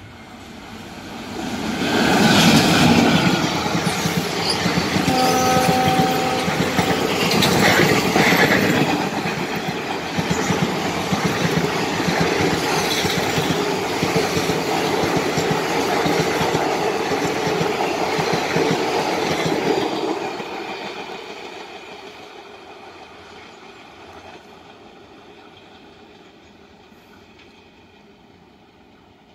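An Indian Railways WDM-3D ALCO diesel locomotive and its express coaches pass at speed. The noise builds quickly as the locomotive goes by, and a horn sounds for about two seconds. Then the coaches' wheels clatter over the rail joints until the noise fades away after about twenty seconds.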